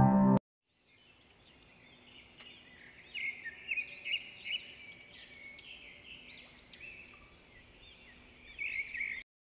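Small birds chirping: many short, overlapping chirps, louder from about three seconds in, after soft instrumental music stops abruptly just after the start.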